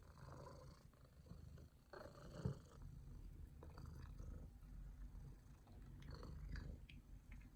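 Domestic cat purring steadily and faintly, a low continuous rumble, with a few soft clicks.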